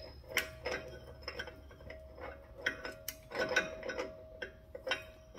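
1989 Suburban's brake rotor and wheel hub spun by hand on a freshly tightened axle nut to seat the wheel bearing, with irregular light metallic clicks and clinks, several a second, over a faint steady ring.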